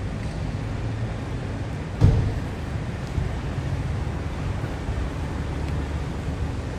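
Outdoor city ambience: a steady low rumble with one dull thump about two seconds in.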